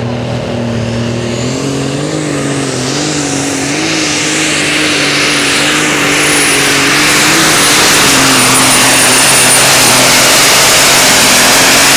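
Light super stock pulling tractor running at full throttle under load as it drags the sled down the track. The engine note wavers slightly, and a high whistle climbs over the first couple of seconds, then holds steady. The sound gets louder through the first half of the run and stays loud.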